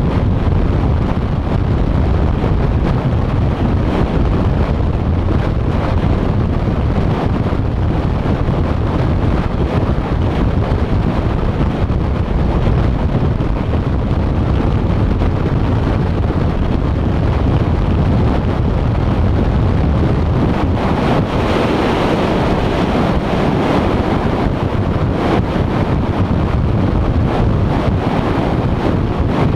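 Wind buffeting the microphone of a GoPro carried on a moving vehicle at road speed, mixed with steady road and tyre noise. A louder rush swells a little past two-thirds of the way through.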